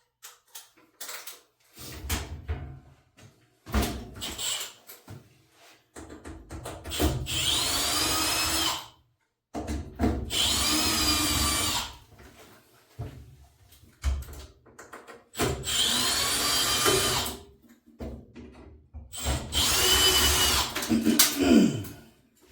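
Power drill-driver with a T20 security Torx bit backing out the control-panel security screws. It runs in four spells of about two seconds each, its whine winding up and dying away each time, with short knocks and clatter of the tool and screws in between.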